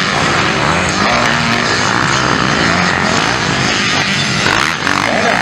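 Several motocross bikes' engines running at high revs as they race around the dirt track, their pitch rising and falling as riders accelerate and shift.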